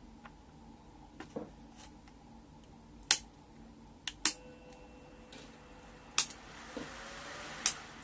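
Sharp plastic clicks, five of them spread over several seconds, from a table fan's base housing its three-speed regulator as it is handled and switched. A faint steady hum runs for a couple of seconds between the second and fourth clicks.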